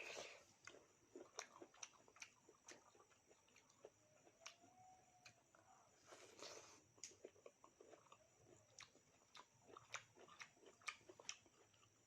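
Someone eating close to the microphone: irregular wet chewing, crunches and mouth smacks, some a few tenths of a second apart.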